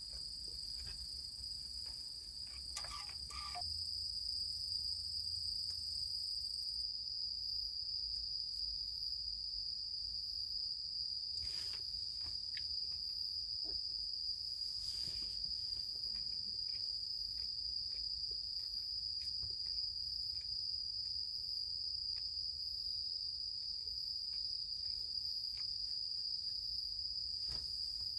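Crickets trilling in one continuous, steady high-pitched drone, with a few faint knocks and clicks here and there.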